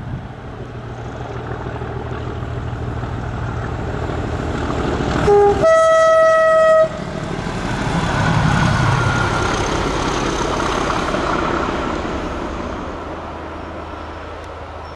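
Diesel locomotives running, their engines building in a steady rumble, with a two-tone horn about five seconds in: a brief lower note, then a longer higher one. The engines then pass close, loudest around eight to nine seconds in, and fade away.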